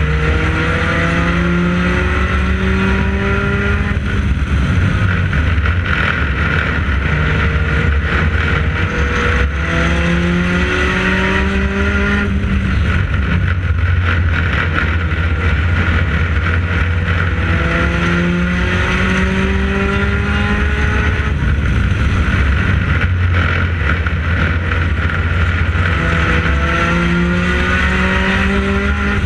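Race car engine heard onboard at racing speed, climbing in pitch along each straight and dropping back when the throttle is lifted for the turns, repeating about every eight seconds lap after lap.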